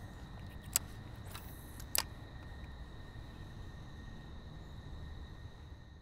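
Quiet outdoor creek ambience: a low steady hiss with a faint thin high whine, broken by two short sharp clicks about a second apart near the start.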